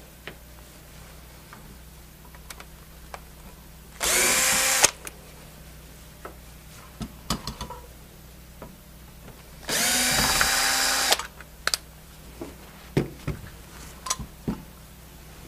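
Cordless drill/driver spinning in two short bursts to back out the screws holding the valve handles on a refrigeration manifold. The first burst comes about four seconds in and a longer one about ten seconds in. Between them are small clicks and taps of handles and screws being handled.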